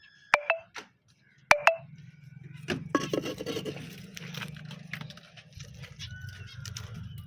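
Finches chirping: two loud sharp calls in the first two seconds, then scattered short twitters. A steady low hum runs under them from about two seconds in.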